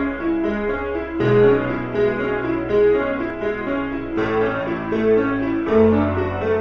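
Background piano music: a flowing run of notes over low bass notes that change every second or so.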